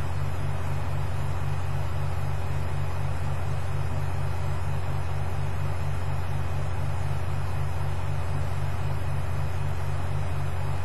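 Steady low hum with a quick, regular pulsing in it, at an even level throughout.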